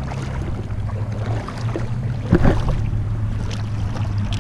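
Wading footsteps splashing through shallow creek water over rocks: a few steps about a second apart, the loudest about halfway through, over a steady low rumble.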